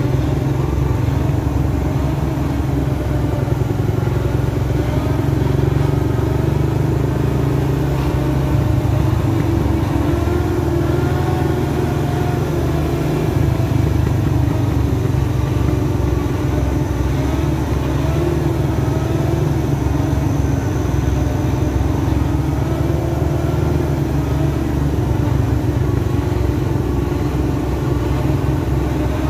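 Heavy diesel truck engines running steadily at low speed, the pitch wavering slightly, as a loaded sugarcane truck convoy creeps down a steep grade. A deep, continuous rumble.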